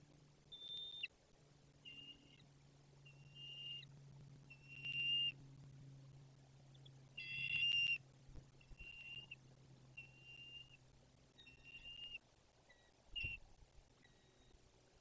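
Bald eagle calling: a series of short, high-pitched whistled chirps, about one a second, the loudest a little past halfway. A faint low hum runs underneath, and a soft knock comes near the end.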